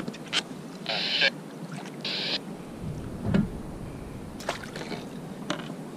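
Rod-and-reel and kayak handling noise while a hooked lingcod is fought from the kayak. There are two short hissing bursts about one and two seconds in, light knocks, and a dull thump around three seconds in.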